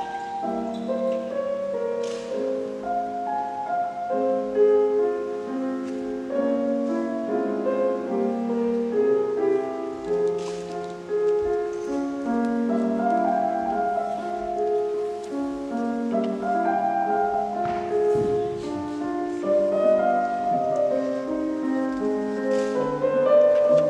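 Slow piano music, with held notes and chords overlapping one another.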